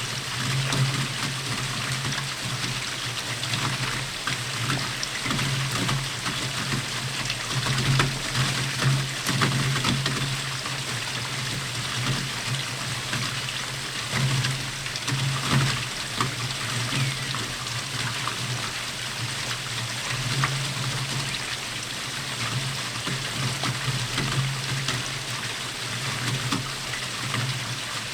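Steady rainfall heard from a porch: a dense hiss of rain with many small drop ticks, and a low droning note that swells and fades every few seconds.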